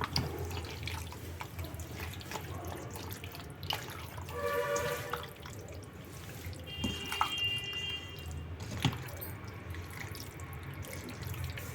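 Wet squelching and squishing of raw chicken pieces being mixed by hand in a yogurt and spice marinade.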